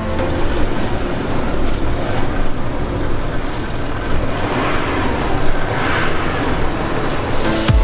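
Land Rover Discovery 3 pushing slowly through deep snow on winter tyres: the engine is working under load and the tyres churn and crunch the snow.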